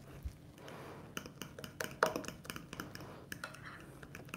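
Hand whisk stirring thick ricotta and egg filling in a glass bowl, with a run of quick, light, irregular clicks of the utensil against the bowl.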